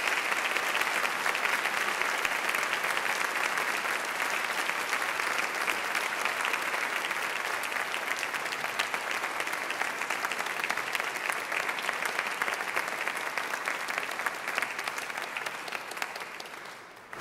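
Audience applauding steadily, the clapping fading out over the last few seconds.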